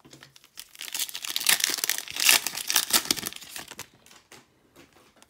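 Trading-card pack wrapper being torn open and crinkled: a dense crackle that builds about a second in, runs for around three seconds and then dies away.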